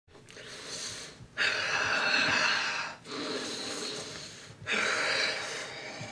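A man breathing heavily and raggedly: long noisy breaths in and out, four in all, the second and fourth louder.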